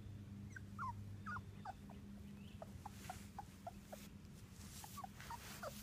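Three-week-old Labrador retriever puppies whimpering: a run of short, high squeaks that slide downward in pitch, about three a second.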